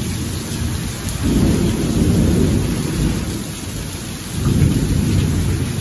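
Heavy rain pouring down, with a deep rumble that swells up twice, about a second in and again after four seconds.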